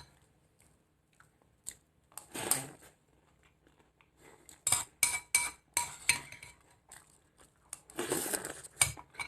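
A spoon clinking against a cereal bowl while eating cereal with milk. There is a quick run of clinks around the middle, and two longer noisy scrapes, one early and one near the end.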